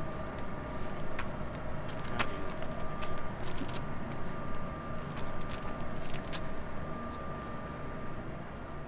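Steady low rumble of city ambience with a constant hum, and a few faint clicks scattered through it.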